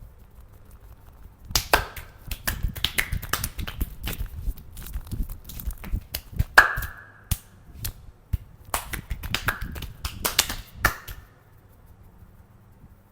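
A masseur's hands and fingers making quick runs of sharp slaps, claps and snaps on the body, starting about a second and a half in and stopping about two seconds before the end. Some strikes carry a short ring, the loudest a little past the middle.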